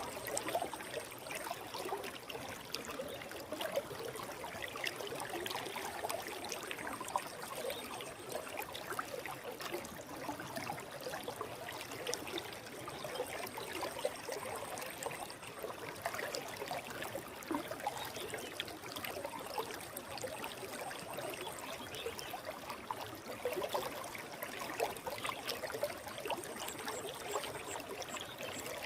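Forest stream flowing: a steady wash of trickling, burbling water with small irregular splashes.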